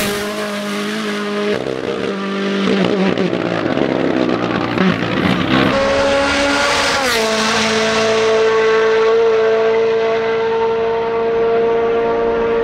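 Turbocharged four-cylinder rally car engines at full throttle, revving hard and changing pitch through gearshifts as the cars pass; in the second half one engine note holds steady and high for several seconds.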